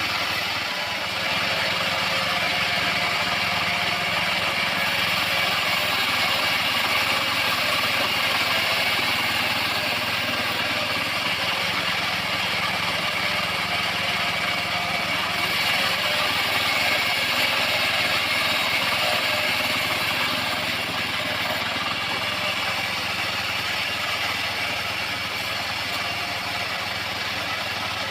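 Portable band sawmill running steadily, a continuous engine-and-saw drone with no breaks, swelling slightly in loudness now and then.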